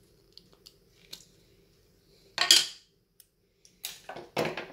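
Hard plastic drum-magazine parts being removed and set down on a wooden workbench: a few light clicks, a sharp clatter about halfway through, then a quick run of knocks near the end.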